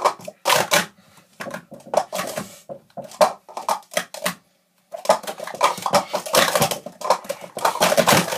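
Plastic sport-stacking cups being stacked up and down at speed on a stacking mat: a rapid run of hollow clattering clicks, with a half-second pause about four and a half seconds in.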